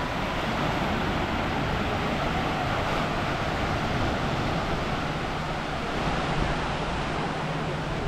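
Steady wash of small waves breaking on a sandy beach.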